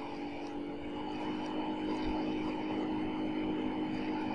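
Steady droning mechanical hum with a few fixed tones, like a motor running in the room.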